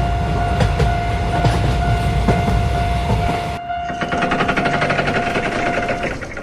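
Train running past with a heavy rumble, rail clatter and a steady high tone over it; about three and a half seconds in it cuts abruptly to a quieter, fast rattling that fades near the end.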